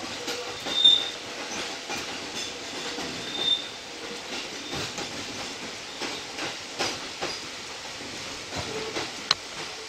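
Electric commuter train rolling slowly over points and round a curve, heard from inside the front car. The wheels click over rail joints and switch frogs, with brief high wheel squeals about a second in and again around three and a half seconds, and one sharp click near the end.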